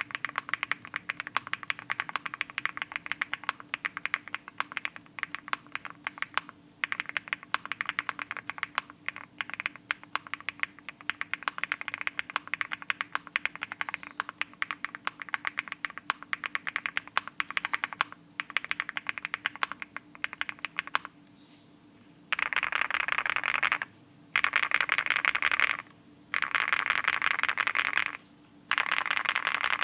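Typing on a Leobog Hi75 mechanical keyboard with MKID Merpati switches and Akko Cream MDA keycaps, a quick run of separate keystrokes with a deep, muted 'thock and creamy' sound. After about 21 seconds and a short pause, it changes to four louder bursts of very fast, almost unbroken keystrokes.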